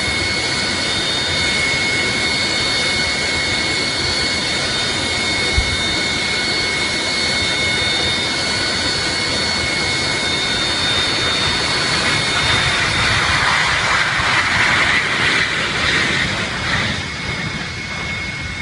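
Jet airliner's engines running: a loud steady rush with a high, constant whine, swelling louder from about two-thirds of the way through and easing off near the end.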